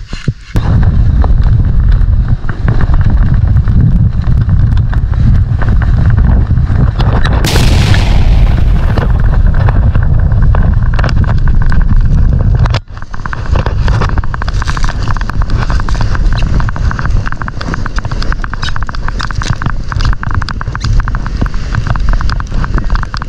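Wind buffeting the camera microphone and a sled sliding fast over snow on a downhill run, a loud, low, rough noise that starts about half a second in. It drops out for a moment about halfway through, then carries on.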